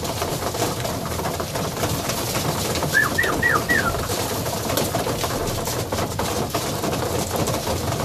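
A flock of young Budapest high flyer pigeons feeding together at wooden trough feeders: a steady clatter of pecking and wingbeats with cooing. About three seconds in comes a quick run of four short high chirps.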